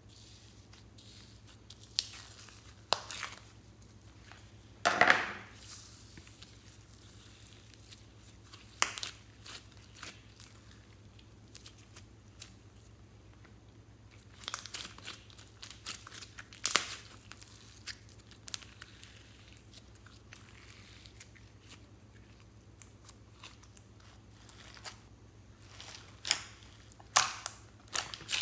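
Hands kneading and squeezing glossy slime mixed with glitter and foam beads, making scattered sticky pops, clicks and crackles, with quiet stretches in between. The loudest pop comes about five seconds in, and a busier run of clicks comes about halfway through and again near the end.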